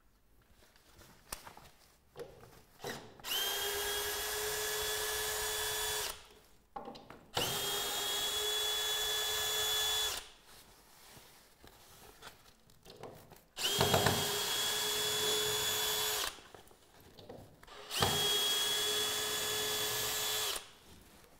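Cordless drill-driver backing screws out of timber roof battens. There are four runs of about three seconds each, with short pauses between them. Each run spins up briefly and then holds a steady whine.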